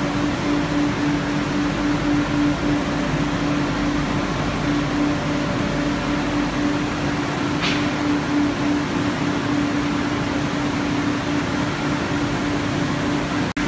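Conveyorised photo-etching machine running: a steady hum under an even hiss of machinery, with one short tick about eight seconds in.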